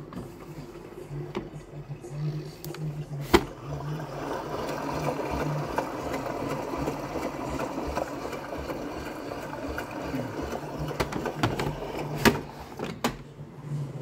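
AEG Electrolux Lavamat washing machine running, with a steady pulsing low hum. A rushing noise swells about four seconds in and eases off near the end. A few sharp clicks, the loudest about three seconds in.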